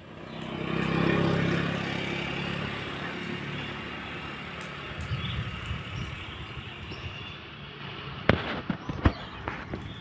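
A passing vehicle's engine swells about a second in and slowly fades, followed near the end by a run of sharp, irregular pops and crackles.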